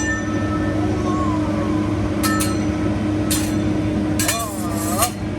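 Restaurant dining-room ambience: a steady low hum under background voices, with a few short ringing clinks of dishes or utensils, the last ones near the end.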